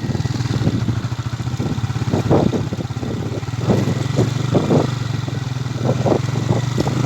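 Motorcycle engine running steadily, with irregular clattering knocks from riding over a rough, bumpy track.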